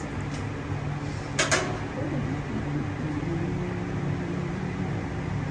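Steady hum of room ventilation, with a brief sharp noise about one and a half seconds in.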